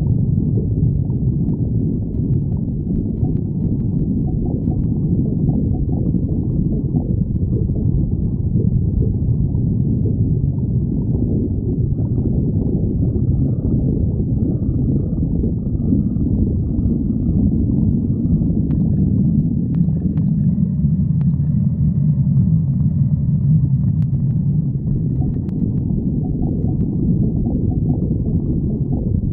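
Stomach growling: a continuous low rumble and gurgle that does not let up.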